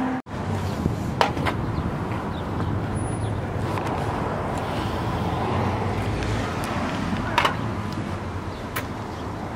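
Steady outdoor traffic noise, with a few sharp clicks or knocks about a second in and again near the end.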